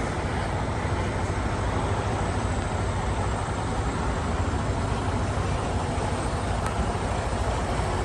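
Semi-truck diesel engine running with a steady low rumble as the tractor rolls slowly through the yard.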